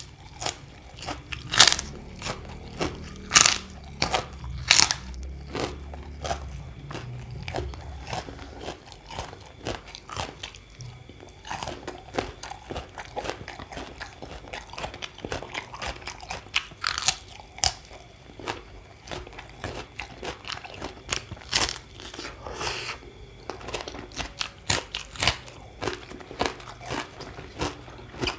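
A person biting into and chewing crunchy food: sharp, irregular crunches with quieter chewing between them. A low hum runs under the first several seconds.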